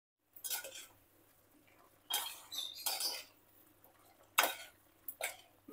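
Kitchen utensils clinking against dishes: about five short, light clinks and scrapes.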